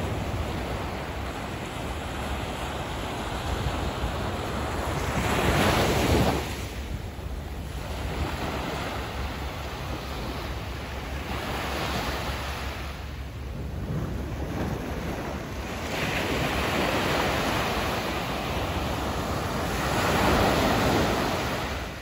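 Small sea waves breaking and washing up onto a sandy beach, rising and falling in surges, loudest about six seconds in and again near the end.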